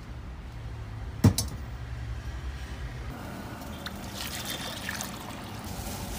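A gas burner lit with a match catches with one sharp pop about a second in. Then water is poured splashing into a metal pot.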